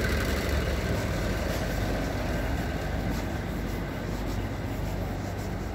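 Steady low engine hum with a constant background rumble, from heavy vehicles running somewhere in the yard.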